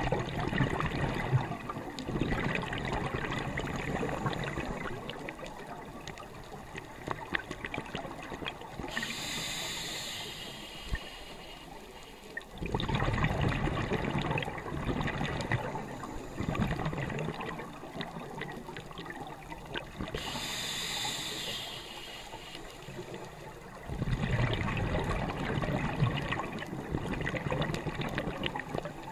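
Scuba diver breathing through a regulator underwater: bubbling exhales lasting several seconds, broken twice by a short hissing inhale, in a slow cycle of about ten seconds.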